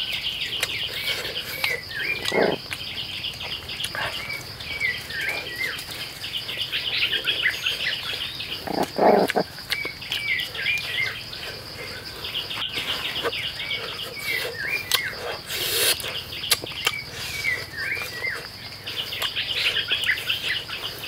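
Rainforest ambience: a steady high insect drone with a bird giving a short call over and over, every second or two. Twice a brief, louder low noise cuts in over it.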